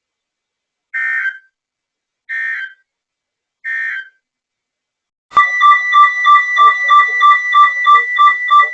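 Three short bursts of EAS/SAME digital end-of-message data tones, each about half a second, closing a NOAA Weather Radio weekly test. About five seconds in, a loud electronic alarm tone starts beeping rapidly, about three pulses a second.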